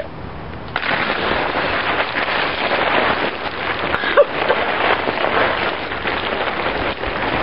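Water pouring down onto a seated person's head and body and splashing to the ground. It starts abruptly about a second in and runs on as a steady splashing rush.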